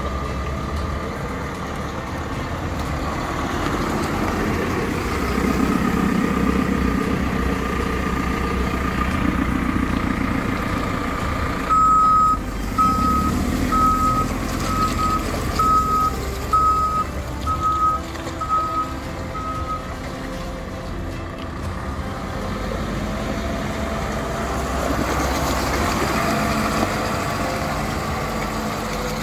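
JCB 4CX backhoe loader's diesel engine running as the machine drives across the yard, with a steady high whine under it. In the middle its reversing alarm beeps about ten times, a little under once a second, and later the engine picks up speed.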